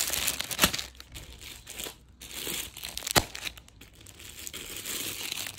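Crinkling and rustling of packaged clothing being handled, with a few sharp clicks in between.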